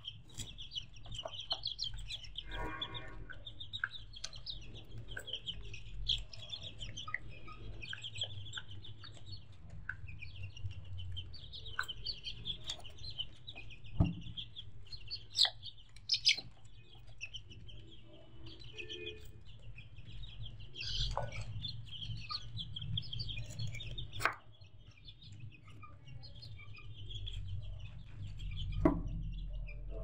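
Chickens: a continuous chorus of short, high peeping calls with clucking mixed in, and a few sharp knocks.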